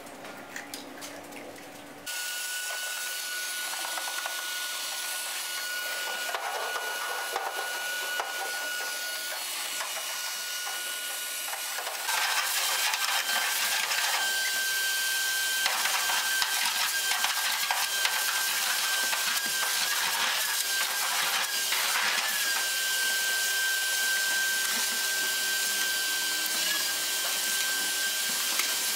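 Vacuum cleaner running steadily with a high whine as it sucks years of debris out of an old car's floor and seats. It starts about two seconds in and gets louder around twelve seconds in, the whine wavering briefly partway through.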